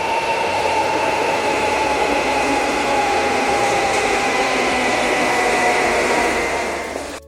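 Train running, a loud steady rumble and hiss with two whining tones that slowly fall in pitch; it cuts off abruptly near the end.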